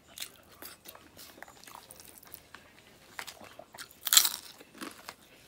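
Close-up eating sounds: small chewing clicks from the mouth, then a loud crunch a little after four seconds in as a crisp cracker is bitten, and a smaller crunch just before the end.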